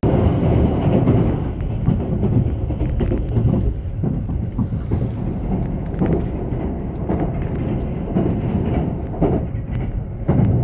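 Haruka limited express electric train running along the track: a steady low rumble of wheels on rail with irregular clicks and knocks from rail joints.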